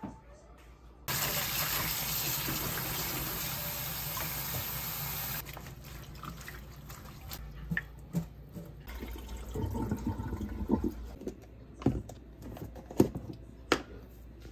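Kitchen tap water running into a stainless steel sink, a steady hiss starting about a second in and cutting off after about four seconds. Then irregular splashes and knocks as washed green onions are shaken off and handled over the sink and a plastic colander.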